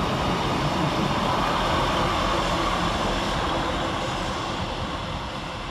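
Two coupled Class 156 diesel multiple units running past, a steady rumble of their underfloor diesel engines and wheels on the rails that slowly fades as the train draws away.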